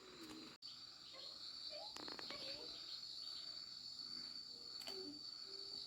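Insects chirring outdoors, a steady high-pitched trill that does not let up, with faint voices in the background.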